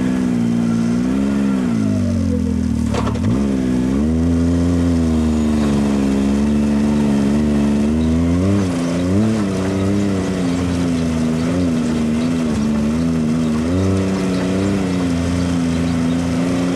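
Can-Am Maverick X RC Turbo RR side-by-side's turbocharged three-cylinder engine revving up and down again and again as it is driven hard and slid across loose sand.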